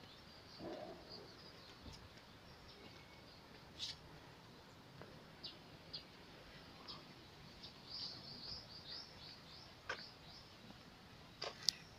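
Birds chirping: many short, high calls scattered throughout over a faint, steady background, with a few sharp clicks, the loudest near the end.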